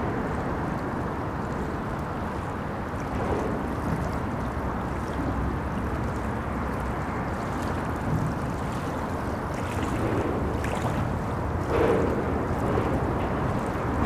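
Steady wash of moving water mixed with the low hum of road traffic crossing a bridge, swelling briefly near the end.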